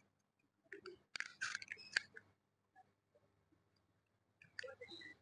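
Faint scattered clicks and short rustles in two brief clusters, over a low steady hum.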